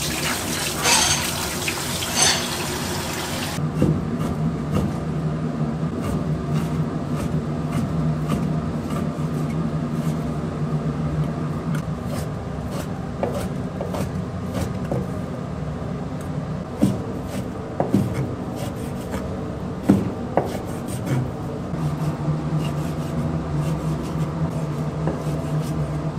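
Water from a hose pouring into a pot of beef bones for the first few seconds, stopping suddenly. Then a knife cutting raw beef on a wooden cutting board, with irregular knocks of the blade on the board over a steady low hum.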